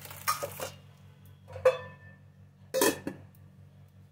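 Steel kitchenware clinking and knocking three times, about a second apart, as spice containers and a spoon are handled against bowls, over a faint steady low hum.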